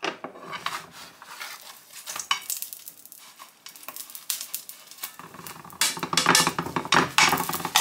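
A metal spatula scraping and tapping against a frying pan as a thin pancake is loosened, folded and lifted, over the light sizzle of batter cooking in oil. The scrapes come in quick runs and are loudest and most frequent in the last two seconds.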